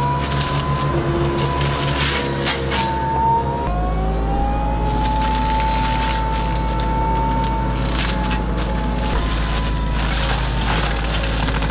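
Tractor-mounted mulcher running under load, shredding tree branches and brush: a steady engine drone and whine with bursts of crackling and splintering wood. The engine and whine change abruptly about four seconds in.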